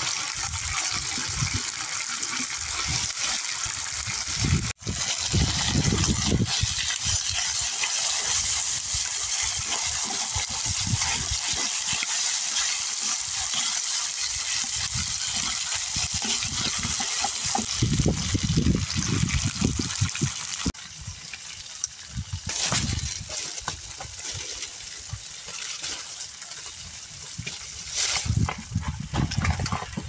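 Water running and splashing in a steady, even rush that eases off about two-thirds of the way through, with scattered low knocks.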